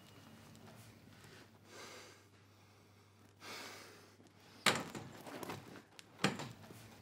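Loaves of bread being set down on a wooden shop shelf: two soft knocks about a second and a half apart, the first followed by a short shuffle as the loaves settle.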